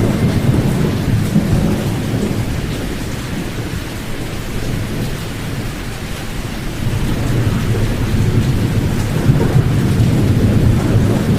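Pink noise, white noise with the high frequencies cut away: a deep, even hiss weighted toward the low end that swells and eases slowly, dipping in the middle and rising again.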